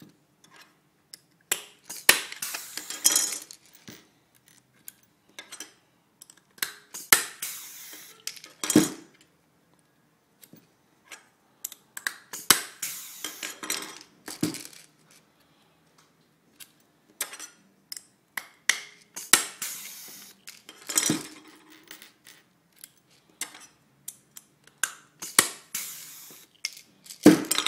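Dafra DRP55 pneumatic blind rivet tool pulling 3/16-inch aluminium rivets, five in all, about every five to six seconds. Each is a short burst of hiss and clicks ending in a sharp snap as the rivet sets, with small metallic clinks of rivets being handled in between.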